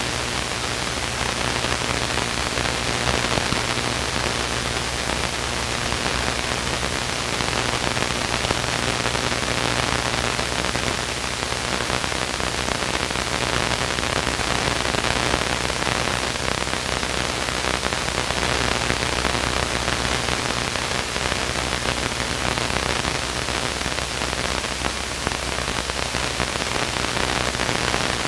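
Steady cabin noise of a Luscombe light aircraft in flight: an even hiss with a low, steady engine and propeller drone underneath.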